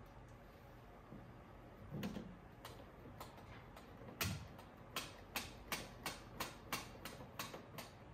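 Hand work on a cassette deck during reassembly: a soft knock, a heavier thud, then a steady run of sharp clicks about three a second.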